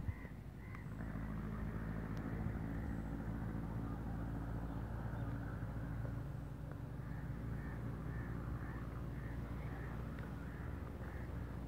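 A steady low engine hum from a motor running off to one side, with crows cawing over it again and again in the second half.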